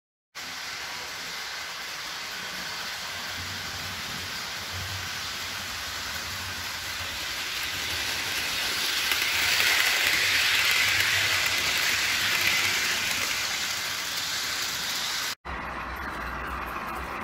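Small model steam locomotive and its cars running along sectional track: a steady whir of motor and wheels that grows louder as the train approaches, loudest about ten seconds in, then eases. It cuts off suddenly near the end and a lower hum takes over.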